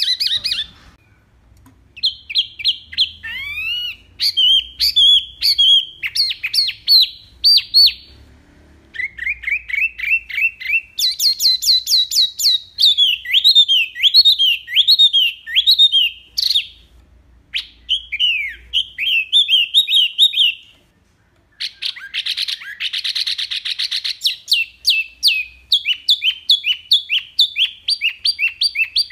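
Wambi mini songbird singing in rapid bursts of quick, sliding whistled notes, phrase after phrase with short pauses between. About three-quarters of the way through comes a harsher, buzzy phrase.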